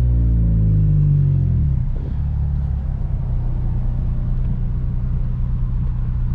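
Turbocharged Honda K24 four-cylinder in a 9th-gen Civic Si, heard from inside the cabin: the engine note falls steadily as the car slows, then settles into a steady low idle about two seconds in.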